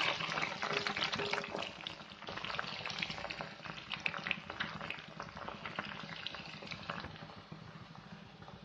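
Raw jackfruit strips deep-frying in hot oil, with a dense sizzle and crackling pops that slowly die down as the water in the fresh fruit boils off.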